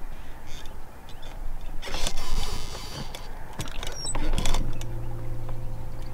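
A spinning rod being cast and worked from a bass boat: a short hissing rush about two seconds in, a few reel clicks, then a steady low electric hum that starts about four and a half seconds in, fitting a bow-mounted trolling motor.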